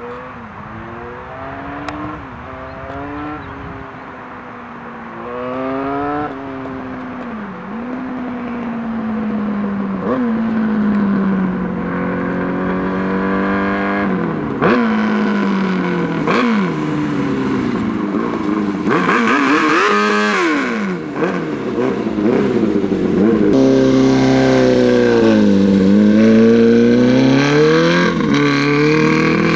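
Minibike engine revving hard and accelerating through the gears. Its pitch climbs and drops back at each shift, again and again, and it gets louder and busier in the second half.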